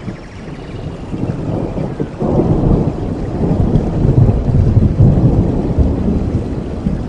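Heavy rain with a roll of thunder that rumbles in about two seconds in, peaks midway and eases off near the end.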